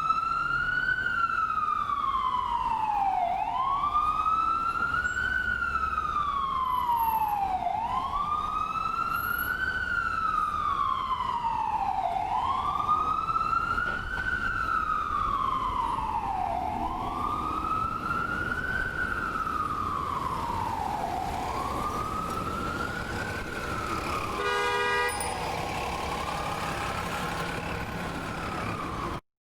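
Ambulance siren in a slow wail, each cycle rising for about a second and falling for about three, repeating about every four and a half seconds. The wail grows fainter in the last few seconds, with a short pitched blast about 25 seconds in, and the sound cuts out for a moment just before the end.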